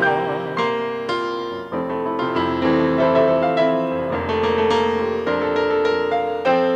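Piano playing a slow ballad accompaniment of chords and single notes on its own, after a held sung note with vibrato fades out about half a second in.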